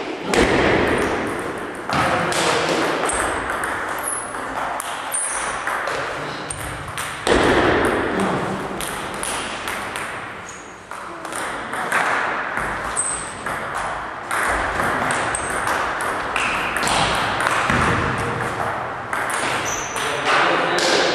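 Table tennis ball clicking off the paddles and bouncing on the table in quick rallies, with short breaks between points.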